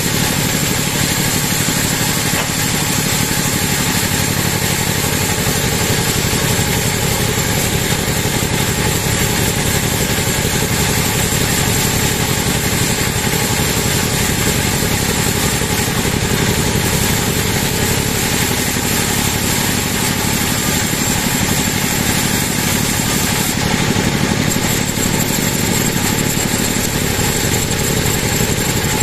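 Sawmill band saw ripping lengthwise through a large teak log: a loud, steady machine drone with a constant high whine that does not let up.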